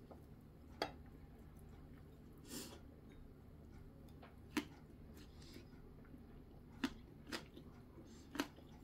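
A person eating at close range: quiet chewing with a few short, sharp wet mouth sounds at irregular intervals, over a low steady hum.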